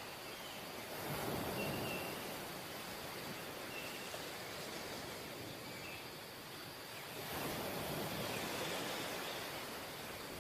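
Sea surf breaking and washing up a sandy beach, a steady rush that swells about a second in and again from about seven seconds in as waves come in, with a few faint short high chirps.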